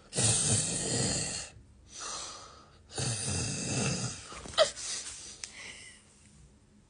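A man snoring: two long, loud snores about three seconds apart with a softer breath between them, and a brief high whistle about four and a half seconds in.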